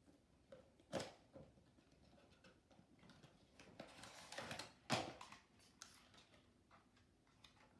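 Toy car packaging being handled and pulled at during unboxing: scattered faint clicks and knocks, a louder knock about a second in, a stretch of rustling around four seconds, and a sharp click near five seconds.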